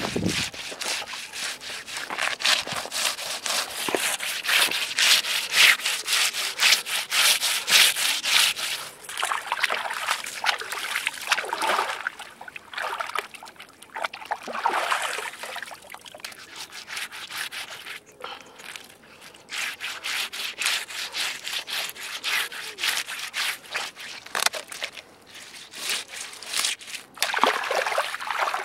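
Fish being cleaned by scraping and rubbing it against a rough rock: rapid, rhythmic scraping strokes, in runs with pauses. Near the end, water splashes as the fish is rinsed.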